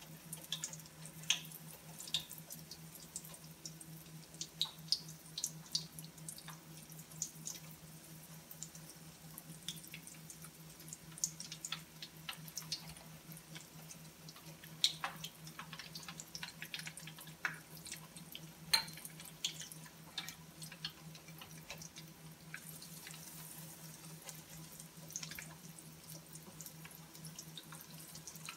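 Battered chicken pieces deep-frying in hot oil in a wok: irregular sizzling and sharp popping crackles, over a steady low hum.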